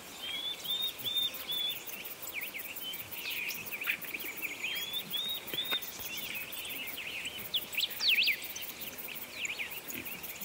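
Woodland birdsong from several birds: one bird repeats a short phrase of four like notes twice, among many other chirps and quick trills.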